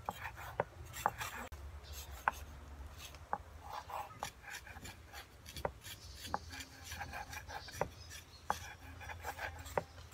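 Kitchen knife slicing raw beef on a wooden cutting board. The blade knocks on the board irregularly, about once a second, with soft rubbing between the strokes.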